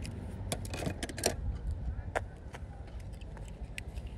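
Scattered light clicks and taps of small die-cast metal toy cars being handled and swapped in the hand, over a low steady rumble.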